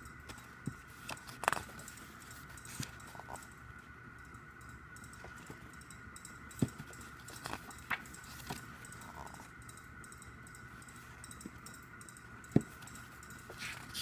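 Glossy photobook pages being turned and handled: scattered soft taps, clicks and paper rustles, a few sharper than the rest, over a faint steady high-pitched whine.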